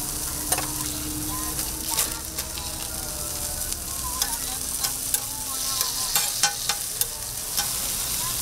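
Bacon, sausages and an egg frying in oil on a flat-top griddle, a steady sizzle with sharp crackling pops, more of them in the second half.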